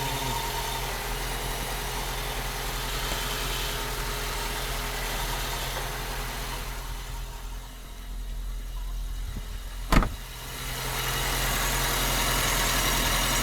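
Opel Corsa's 1.2-litre X12XE four-cylinder petrol engine idling with an odd extra noise, which the owner takes for coming from the clutch. The noise drops away for a few seconds past the middle, a single sharp click comes about ten seconds in, and then the noise comes back and holds steady; the noise is absent with the clutch pedal pressed and present with it released.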